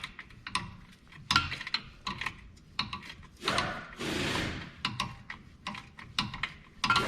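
Metal hand tools and loose car parts clinking and knocking, from a mechanic removing the sway bar bushing bracket bolts. There is a short rushing noise about three and a half seconds in.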